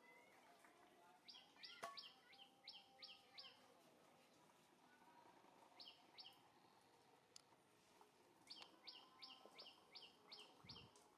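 A bird calling faintly in runs of short, high, falling chirps, about three a second. One run of about seven comes early, then a pair, then another run of about seven near the end.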